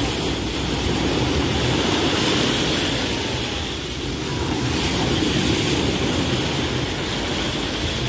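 Sea surf washing in over the shallows: a steady rushing noise with a heavy low rumble, swelling and easing as the waves come in.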